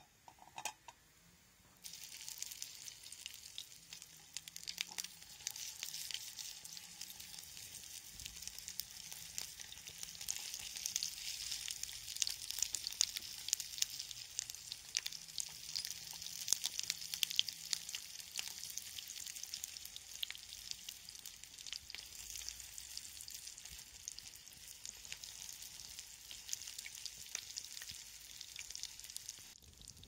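Sausage slices frying in oil in a steel frying pan: a steady sizzle crowded with small spits and pops, starting abruptly about two seconds in.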